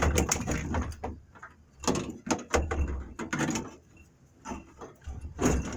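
Irregular knocks, clicks and rattles in several bursts, with a few dull thuds, as hands work a wiring harness and its plastic connectors into a truck's dashboard.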